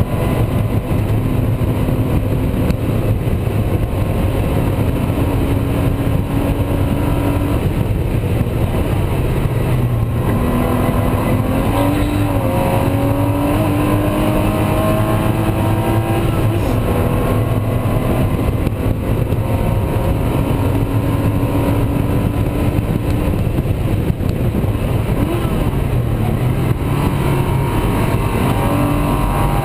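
Porsche Spec Boxster's flat-six engine at race pace heard inside the cabin, its pitch climbing and dropping as it accelerates, shifts and lifts for corners, over steady road and wind noise.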